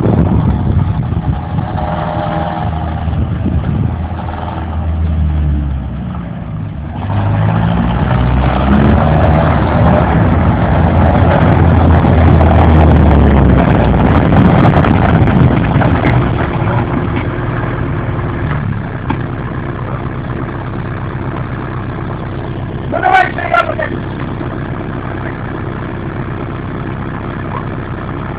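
Engine of a TTM-3902GR tracked swamp-going carrier running. About a quarter of the way in it speeds up and gets louder under load, then eases back to a steadier running note.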